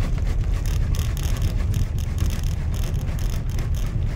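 Car tyres running over raised transverse rumble strips and road studs: a steady low road rumble with a rapid, uneven run of small thumps and clicks.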